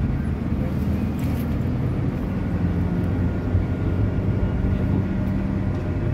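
Cabin noise of a moving minibus: a steady low rumble of engine and tyres on the road, with a steady engine hum that drops away near the end.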